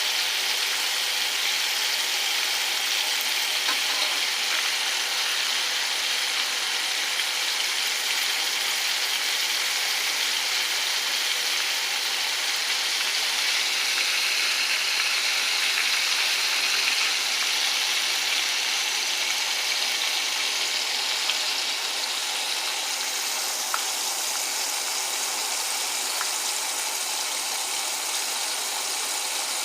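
Ribs frying in hot oil, a steady sizzling hiss with two faint clicks about two-thirds of the way through.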